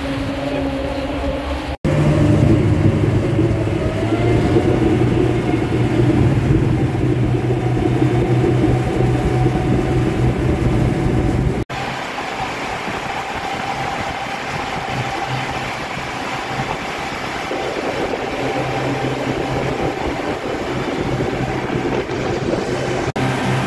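Tour boat's engine running steadily at cruising speed, a low even hum over rushing water and wind noise. It gets louder about two seconds in and drops out for an instant twice.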